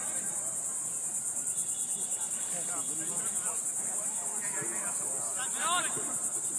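Steady, high-pitched insect chorus, pulsing rapidly without a break. Faint distant voices come over it, with a louder shout near the end.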